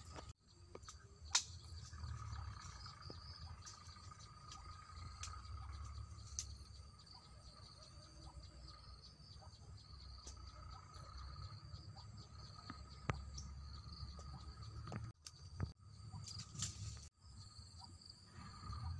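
Forest insects calling steadily, a constant two-pitched buzzing drone, over a low rumble, with scattered faint clicks. The sound cuts out briefly a few times in the second half.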